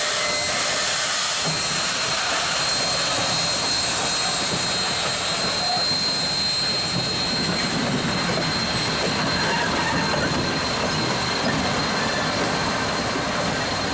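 Union Pacific 844's two water tenders rolling slowly past on steel wheels: a steady rumble and rattle of wheels on rail, with a thin, steady high squeal over it.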